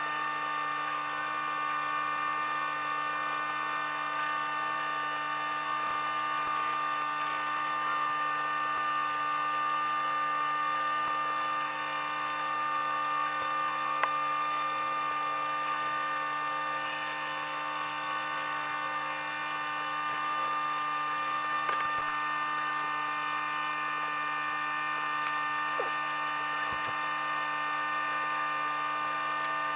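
Outrigger boat engine running at a steady speed: a constant hum that holds one pitch throughout.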